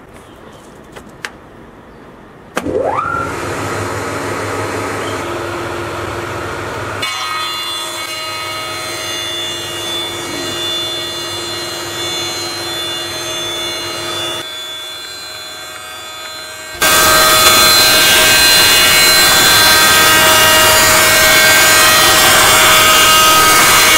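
Large 600 mm jointer planer: a few light clicks, then the machine starts with a rising whine about two and a half seconds in and runs steadily. From about two-thirds of the way through a much louder, even noise sets in over the running tones, as a board is planed through the cutterhead.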